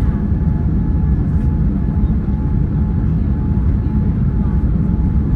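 Steady low rumble of engine and airflow noise inside a Boeing 787's cabin in flight shortly after take-off, with a faint steady tone above it.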